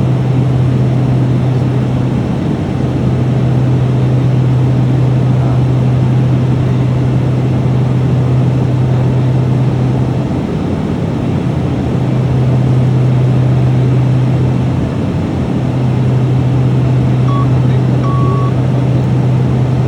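Cockpit noise of a Piper Cheyenne III twin turboprop in flight: a steady low propeller drone over a broad rush of noise, dipping and swelling every few seconds. Two short electronic beeps, one short and one longer, sound near the end.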